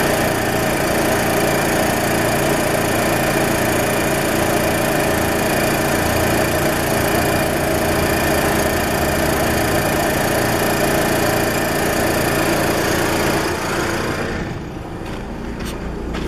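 Car engine running, with a steady whistle from the area of the air-conditioning compressor pulley. It gets quieter and duller about fourteen seconds in.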